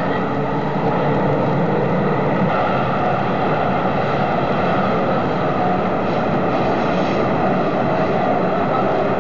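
Steady, unbroken rumble and hiss of a running vehicle, with faint steady tones over it.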